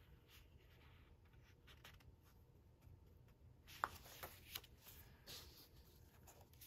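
Paper pages of a marker colour-chart booklet being turned: faint rustling, with a few light ticks about four seconds in.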